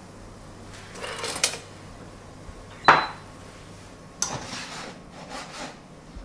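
Metal kitchen utensils clattering and scraping against stainless steel pots and pans, with one sharp clink about three seconds in that rings briefly.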